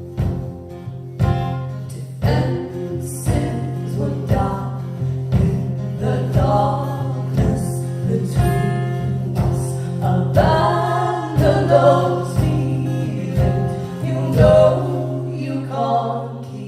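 Live performance of a song: sung vocals over guitar, a held low note and a regular beat, fading out right at the end.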